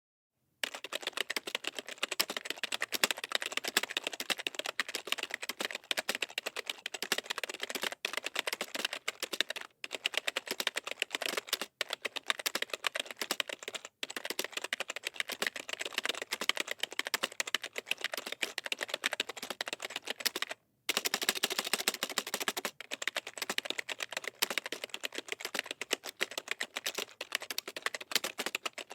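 Fast, continuous typing on a desktop computer keyboard with tall keys: a dense run of key clicks, broken by a few short pauses.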